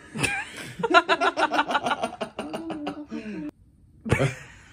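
A person laughing in quick, repeated bursts that break off suddenly about three and a half seconds in.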